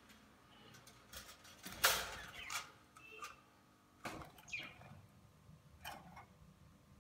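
Budgerigars in a wire cage: a few soft short chirps among scattered clicks, knocks and rustles, the loudest a knock about two seconds in.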